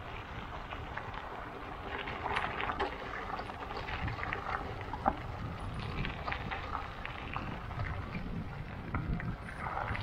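Wind rumbling on the microphone, with scattered light crackles and clicks.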